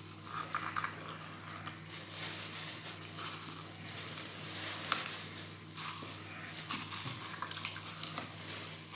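Aluminium hand meat grinder mincing boiled pork fat and potato: a continuous wet crackling and squishing as the mixture is forced through the cutting plate, with a few sharp clicks.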